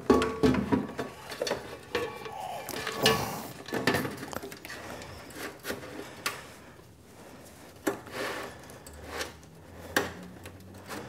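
Cables being handled and a plasma cutter power supply being set onto a thin 20-gauge sheet-steel shelf: scattered knocks and clicks with cable rubbing between them, the sharpest knock right at the start.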